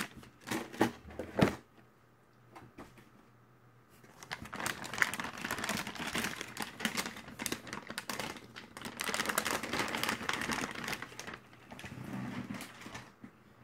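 Graphics card packaging being handled: a few sharp clicks, then long stretches of crinkling and rustling as the card is unwrapped from its packing.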